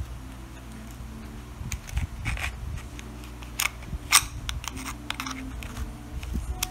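Small metal clips and spring plates being worked onto a tail-light housing with a screwdriver: a few sharp clicks and scrapes of metal, the loudest about four seconds in, over a steady low hum.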